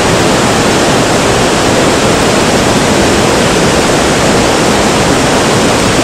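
Naena Falls, a waterfall dropping into a rocky gorge, rushing with a loud, steady roar of falling water.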